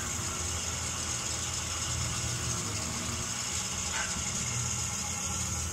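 Oil well pump jack running: a steady low mechanical hum from its drive as the beam and counterweights rock.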